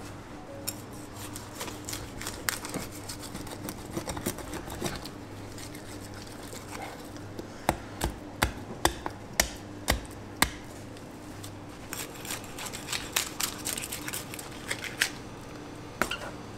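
A long knife cutting into a large bluefin tuna's head and collar, with crackling and scraping of the blade against bone. About halfway through comes a run of about seven sharp knocks, roughly two a second, as the blade strikes the bone, then more small clicks.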